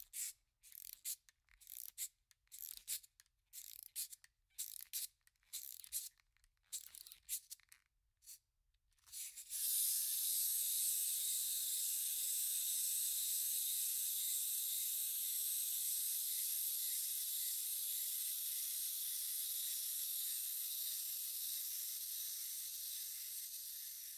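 Wind-up toy: a dozen or so short rasping turns as the key is wound, then from about nine seconds in the clockwork spring motor runs with a steady high whirr that slowly eases off.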